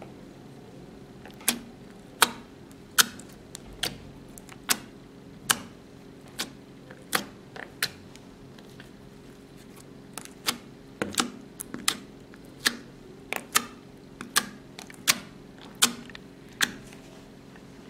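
Clear slime pressed and poked with the fingertips, giving sharp wet clicks and pops, irregularly one or two a second.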